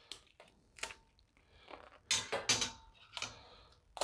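Vinyl wrap film being peeled off a metal grille bar and crumpled by hand: a handful of short, irregular crackles and rustles.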